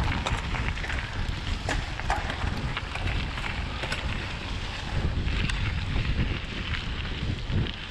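Wind buffeting an action camera's microphone on a mountain bike riding over a gravel forest road. Beneath it run the rolling tyres on the gravel, with scattered sharp clicks and rattles from the bike.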